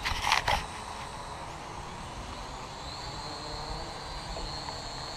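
Syma X8W quadcopter flying overhead, its motors and propellers giving a thin high whine that steps up slightly in pitch about three seconds in. A short loud rustle right at the start.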